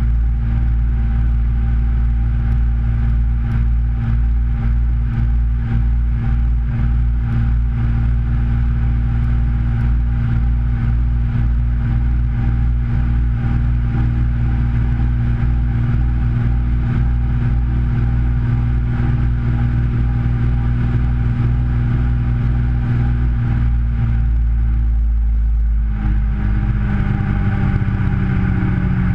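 Washing machine running, heard from inside the drum: a loud, steady motor hum with a light clatter. Near the end the hum steps down in pitch.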